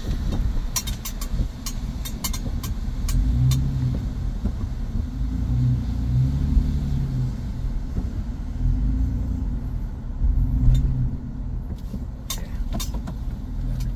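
Vehicle cab noise while driving: a low engine and tyre rumble that swells and eases several times, with scattered sharp clicks in the first few seconds and again near the end.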